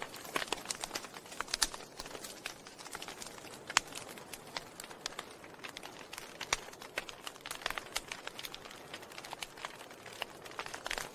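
Wood fire crackling in a fireplace: irregular sharp pops and snaps from burning logs over a soft hiss, with one louder pop a little under four seconds in.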